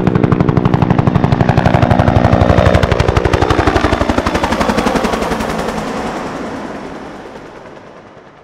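UH-1 Huey helicopter main rotor beating in a fast, even blade slap, falling slightly in pitch and then fading away over the last few seconds.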